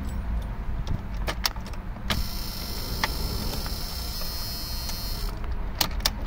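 Ignition key of a Jeep Cherokee XJ being cycled with the engine off, giving a series of sharp clicks. From about two seconds in, the electric fuel pump runs with a steady high-pitched whine for about three seconds and then stops, priming the fuel rail.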